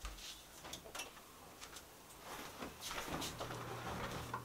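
Faint knocks, clicks and clothing rustle as a person moves about beside a desk and gaming chair, about to sit down. A low steady hum comes in about three seconds in.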